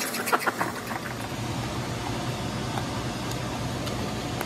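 A spoon scrapes and stirs thick grits in a saucepan for about half a second. Then a steady low hum with an even hiss is left, the constant running of a kitchen appliance.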